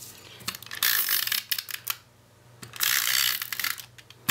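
Tape-runner adhesive dispenser drawn across patterned paper twice, each pass about a second long, laying down adhesive strips.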